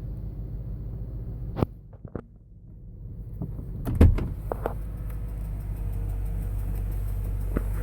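BMW-built 4.4-litre M62TUB44 V8 of a 2003 Range Rover running steadily with a light ticking, which the uploader's tags put down to the hydraulic tappets. A single loud knock about four seconds in, with a few clicks around it.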